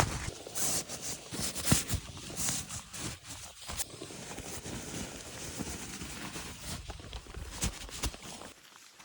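A hiker's footsteps on a gravel forest road, an uneven run of crunching steps that cuts off shortly before the end.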